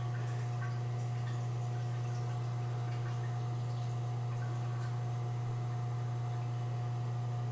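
A steady low hum, with faint trickles and drips of someone urinating into a toilet that die away after about three seconds.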